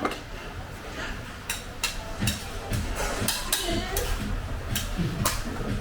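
Indistinct voices and background music over a low hum, with a run of sharp clicks through the middle and latter part.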